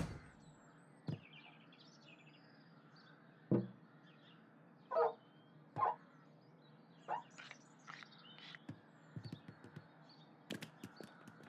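Faint outdoor birdsong ambience with scattered short cartoon sound effects: a couple of soft thuds, two brief pitched sounds a second apart, and a run of quick small taps near the end.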